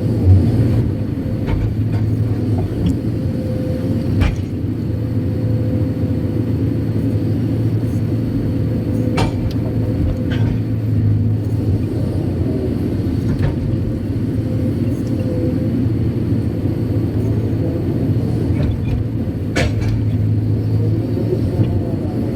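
Kobelco SK200-8 Super X excavator's diesel engine running steadily, heard from inside the cab, with a few sharp knocks now and then.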